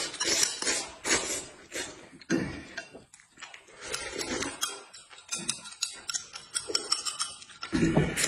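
A person slurping soup straight from the rim of a plate in repeated short draws, with eating noises and small clicks of a spoon and chopsticks on dishes.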